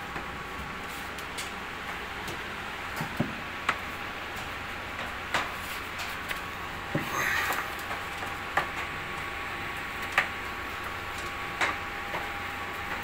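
Scattered, irregular light knocks and taps of a brush against the walls of a fiberglass cooler mould, with a brief scraping swish about halfway through. Underneath runs a steady hiss with a faint steady whine.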